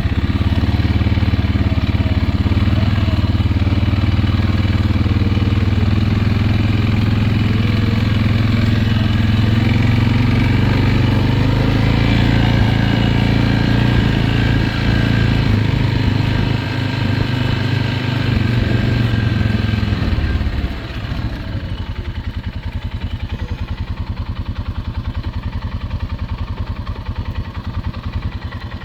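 Riding lawn mower engine running hard, its pitch wavering up and down. About twenty seconds in it drops back to a quieter, evenly pulsing idle.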